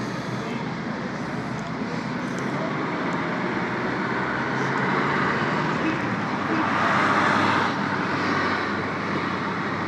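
Street traffic noise: a steady hiss of passing road vehicles that swells twice, about five and seven seconds in.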